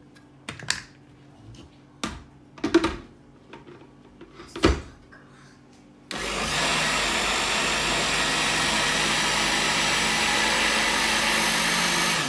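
A few sharp knocks and clicks, then about six seconds in a SilverCrest countertop blender starts abruptly and runs at a steady speed, mixing a thick batter of whole-wheat semolina, flour and water.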